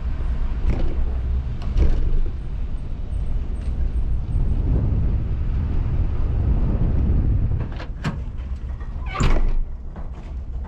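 Pickup truck running, a steady low rumble of engine and road noise that drops away about three-quarters of the way through. A sharp click follows, then a louder clunk about a second later.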